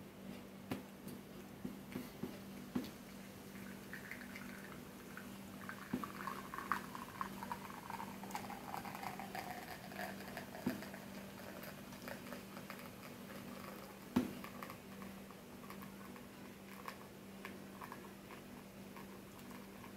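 Espresso from a 1991 La Pavoni Professional lever machine's bottomless portafilter running into a ceramic cup during a double ristretto shot: scattered drips at first, then a thin stream pouring quietly. A faint tone slides down in pitch in the first half, over a steady low hum.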